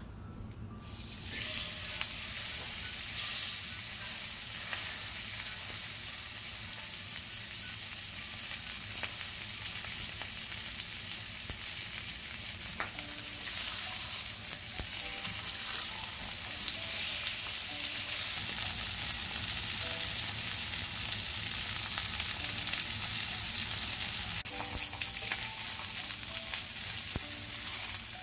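Beef striploin steaks searing in hot oil in a cast iron skillet: a steady, loud sizzle that starts about a second in and keeps going.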